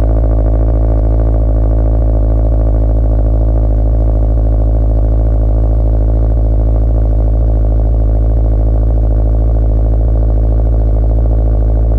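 Subaru WRX STI's turbocharged 2.5-litre flat-four idling steadily just after a cold start, heard at the tailpipe through a Killer B header and up-pipe, an Invidia catted downpipe and an N1 resonated cat-back exhaust.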